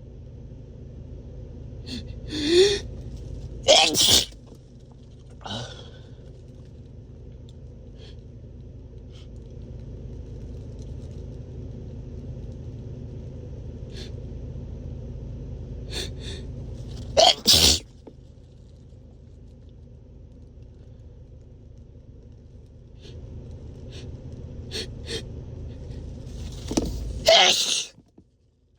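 A man sneezing hard three times: near the start, in the middle and near the end, each a loud, explosive burst after a gasping inhale. There are smaller breaths between them, over a steady low background rumble that stops near the end.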